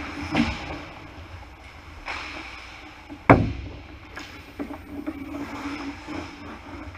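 Ice hockey play: one sharp, loud crack about three seconds in, with smaller knocks near the start and at about two seconds, over a steady low hum.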